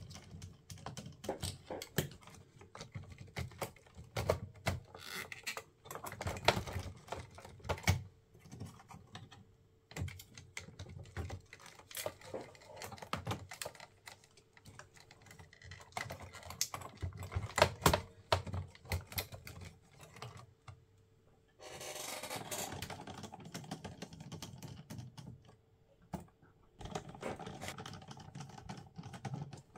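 Handling noise from the plastic chassis, cassette mechanism and wiring of a Sharp GF-9494 boombox being worked on by hand: irregular small clicks, taps and rattles, with a couple of seconds of rubbing about two-thirds of the way through.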